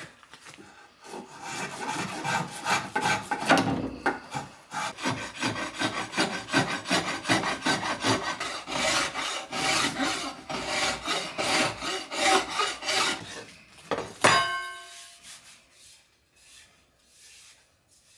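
Hand tool shaving and scraping a wooden axe handle in quick repeated strokes. Near the end the strokes stop with a short metallic ring, and a few faint scrapes follow.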